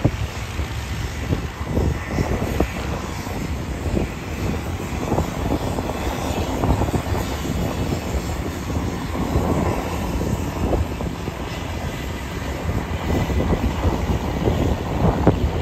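Light single-engine propeller airplane taking off, its engine running steadily at takeoff power.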